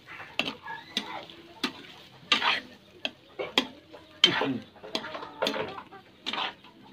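Metal spatula scraping and clanking against a wok while stir-frying chopped eel and garlic, about a dozen strokes at an uneven pace.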